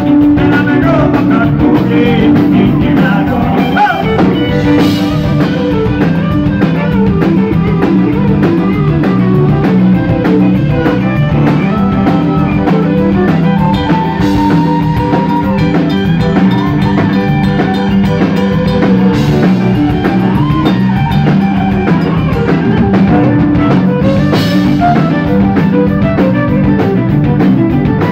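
Live Cajun band music, played loud: Cajun accordion with fiddle, electric guitar, bass guitar and drum kit.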